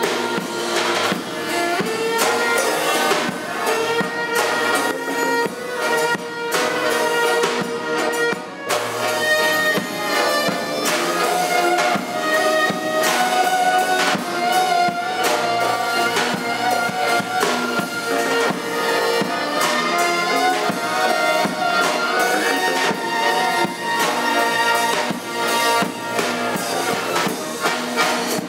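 Live instrumental ensemble music: bowed violin, accordion and double bass playing together in sustained, overlapping melodic lines, with a short break in the texture about eight seconds in.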